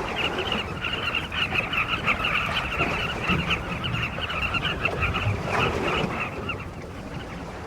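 A large nesting colony of carmine bee-eaters calling all at once: a dense chatter of many short, overlapping calls that eases a little near the end.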